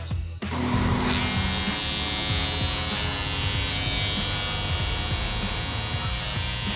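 Electric hair clipper switched on about half a second in, then running steadily with a buzzing hum.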